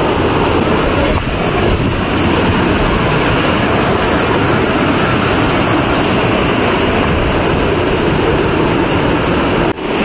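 Rushing white water of a rocky mountain stream pouring over and between boulders: a loud, steady rush that dips briefly just before the end.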